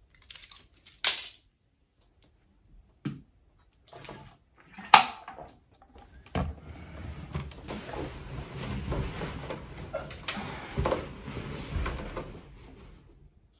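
Pills being pressed out of a foil blister pack: a few sharp crackling clicks, the loudest about five seconds in. About six seconds in comes a thump, then several seconds of steady rustling noise broken by scattered knocks.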